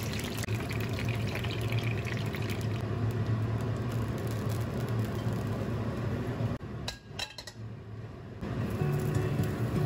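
Hot oil sizzling and crackling softly in a nonstick wok as fried chicken pieces are lifted out, over a steady low hum. The sound drops away for about two seconds a little past the middle.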